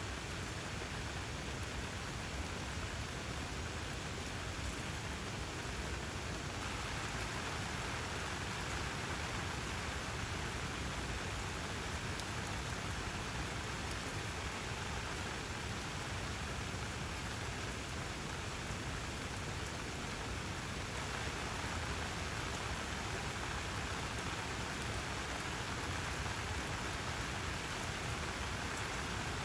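Steady rain falling, an even hiss that swells slightly for a stretch in the middle.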